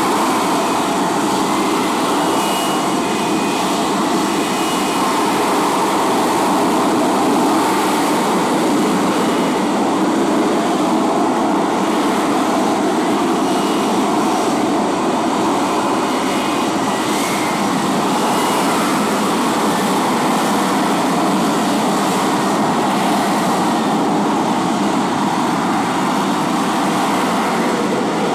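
The F-35B's F135 jet engine running loud and steady, an even rushing noise with no breaks or swells.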